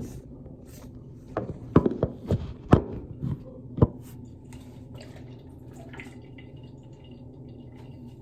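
Liquid dripping in a small room: a quick run of about eight sharp drips starting about a second in, over a steady low hum.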